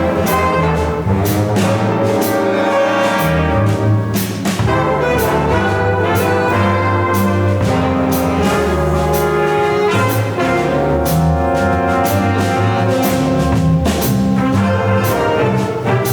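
Instrumental music from a student ensemble: brass holding chords over a steady beat of percussion strikes.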